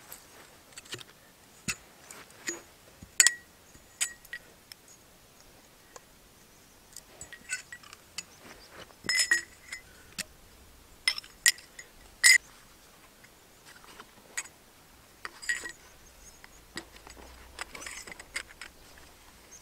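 Sections of a lavvu tent pole clinking and knocking together as the pole is handled and taken apart. The clinks are irregular and sharp, each with a short ring. The loudest come about three seconds in and again about twelve seconds in.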